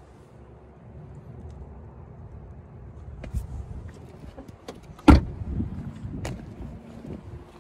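Rear door of a 2007 VW Passat B6 closing with one loud slam about five seconds in, with a few lighter clicks before and after.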